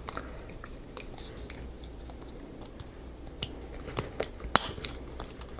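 Scattered light clicks and taps of small parts being handled, as the marble run's motor is turned round and pushed into its wooden mount, with one sharper click about four and a half seconds in.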